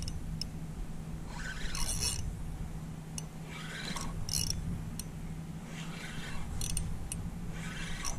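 Spinning reel being cranked in short spells while a hooked redfish is played: a scratchy, rasping whir about every two seconds, with a few sharp clicks between.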